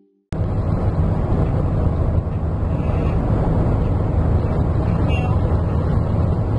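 Steady rumble of road and wind noise inside a moving car's cabin, heavy in the low end, starting abruptly just after the start.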